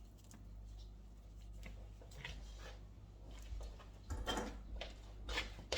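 Faint kitchen handling noise: scattered soft knocks and clicks, a few stronger ones in the second half, over a steady low hum.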